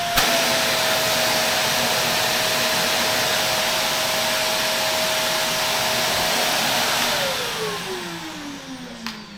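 Shark Navigator Lift-Away vacuum running with a steady high whine and rushing air, used with its crevice tool to clean a filter, with a short click just after the start. About seven seconds in it is switched off and the motor winds down, its pitch falling.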